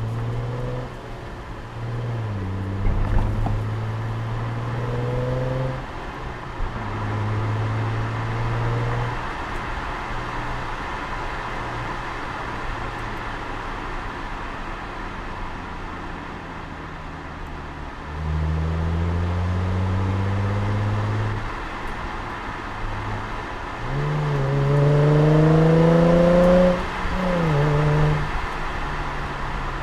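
Car engine revved in several separate bursts, its pitch climbing during each, with a steadier lower running sound in between; the loudest rev comes near the end.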